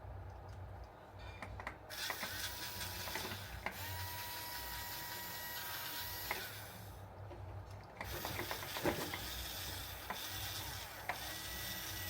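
Small electric motor and plastic gearbox of a Huina 1569 RC bulldozer whirring with a steady whine and gear clicking, in two runs with a short stop about seven seconds in.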